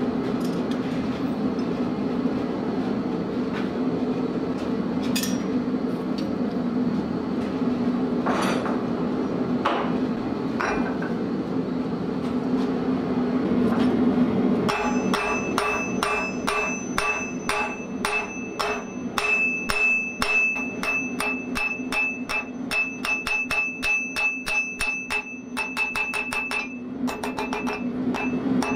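A steady low hum from the running forge, with a few scattered knocks. About halfway in, a hand hammer begins striking a red-hot steel bar on the anvil in a fast, even run of blows, each with a metallic ring from the anvil, pausing briefly near the end.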